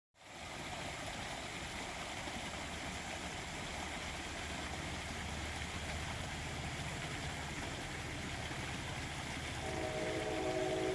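Creek water running steadily over rock ledges, with a low steady rumble underneath. Near the end, a horn with several steady tones sounding together starts up and holds.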